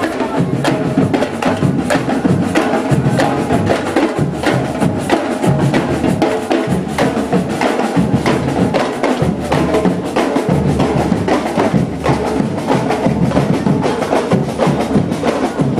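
Batucada drum group playing a steady samba rhythm of drum hits with a sharp clicking percussion part.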